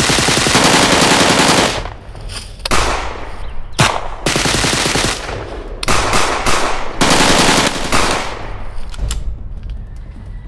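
Gunfight gunfire: several volleys of rapid shots, each lasting a second or two with short gaps between them, and a single sharp shot about four seconds in; the firing thins out near the end.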